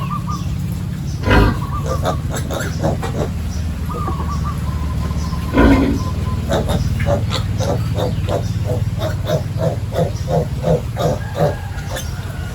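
Pigs squealing sharply twice, then a run of short quick grunts, over a steady low hum.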